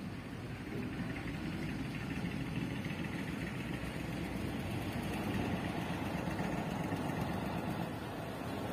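Diesel engine of a medium cargo truck running under load as it approaches on a rough dirt road, growing louder over the first few seconds.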